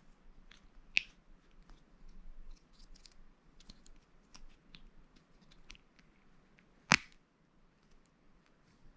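Plastic Lego pieces being handled and pressed together: a scatter of light clicks and rattles. Two sharp, louder snaps stand out, one about a second in and another about six seconds later.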